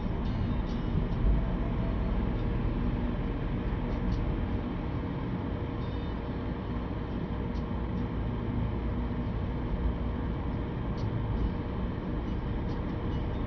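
Steady low rumble of a car's tyres and engine heard inside the cabin while driving on a snow-covered road.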